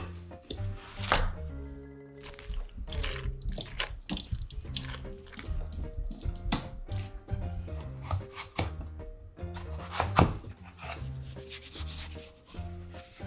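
A chef's knife cutting and scraping through a netted melon on a wooden cutting board, and a spoon scraping out the seeds, in many short rasping strokes over background music.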